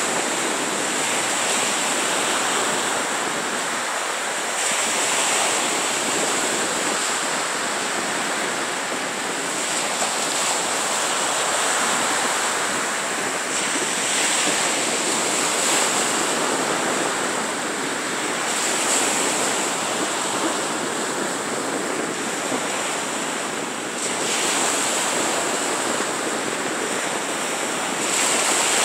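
Small waves breaking and washing up onto a sandy beach: a steady surf hiss that swells every few seconds as each wave comes in.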